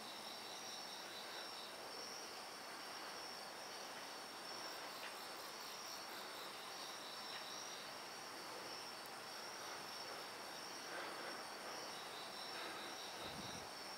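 Crickets and other night insects chirping: a steady high trill with rows of quick pulsed chirps over it.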